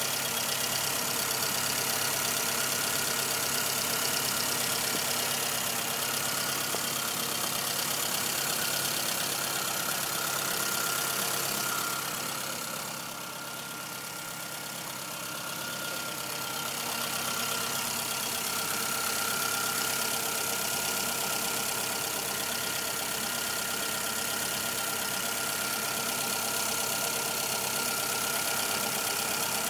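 1997 Suzuki Swift's 1.3-litre four-cylinder engine idling steadily with a ticking noise, briefly quieter about midway.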